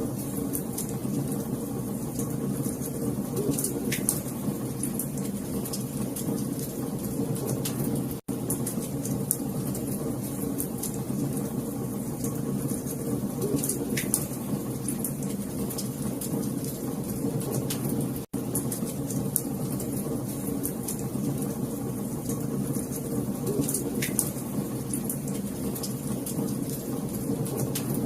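Log fire crackling over a steady low roar, with scattered sharp pops. The sound drops out for an instant about every ten seconds, about 8 and 18 seconds in, where the recording loops.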